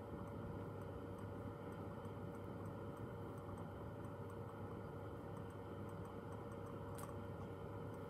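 Steady rushing of a Bunsen burner flame heating a beaker of tap water at about 92 °C, just short of the boil, with a faint, regular ticking over it.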